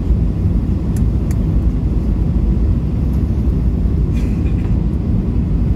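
Steady low rumble inside the cabin of an Airbus A320 airliner, with a few faint clicks.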